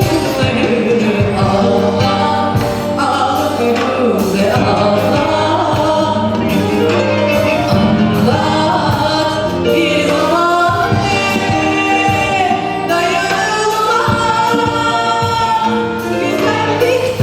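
A singer performing a pop song with band accompaniment: a sung melody over sustained bass and a steady beat.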